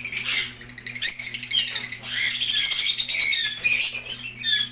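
Lovebirds chattering and squawking: a dense run of rapid, shrill, high-pitched calls, with a brief lull about a second in before it rises again.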